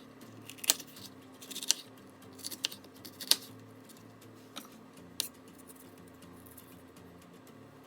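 Irregular sharp clicks and taps of kitchen food preparation, a handful in the first few seconds and fewer later, over a faint steady hum.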